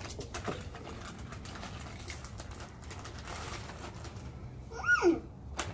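Potato chips crunching and a chip bag crinkling as children eat and pass the bag, with scattered faint clicks. About five seconds in there is a single short vocal sound that rises and falls, then a sharp crackle.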